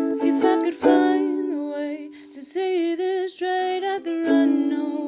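Acoustic music: a strummed string instrument with sharp chord strokes, and a woman's voice singing a sustained melody that comes in about halfway through.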